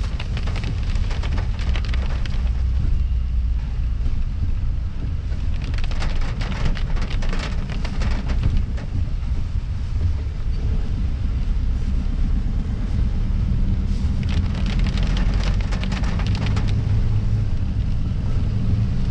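Inside a four-wheel drive's cabin while driving a wet dirt track: a steady low drone of engine and tyres, with spells of fast ticking and rattling that come and go.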